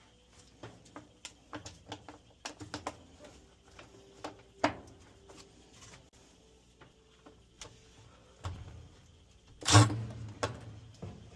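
Scattered clicks and knocks of tools and parts being handled while a new blower fan assembly is fitted into a dryer, with one heavier knock about ten seconds in.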